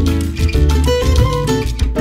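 Background music with a steady rhythm of quick, sharply struck notes.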